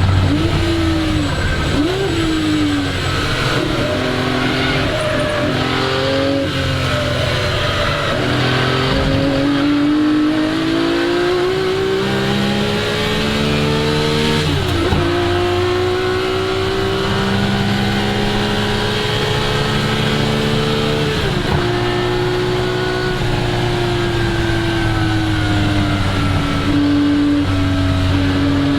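1961 Ferrari 250 GT SWB's three-litre Colombo V12 being driven hard, its pitch climbing through the revs and dropping sharply several times at gear changes, then holding at nearly steady revs near the end.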